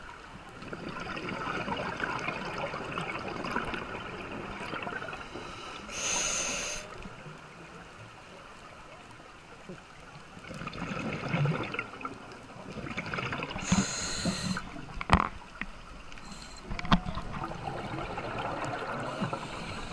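Scuba regulator breathing underwater: long crackling rushes of exhaled bubbles, broken by a short hiss from the regulator on each inhale, about six and fourteen seconds in. A couple of sharp clicks follow the second inhale.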